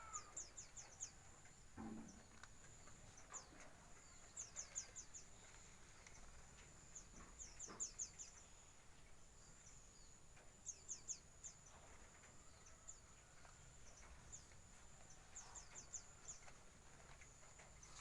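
Small aviary birds chirping faintly: quick runs of four to six high, falling notes repeating every few seconds, over a steady high-pitched buzz.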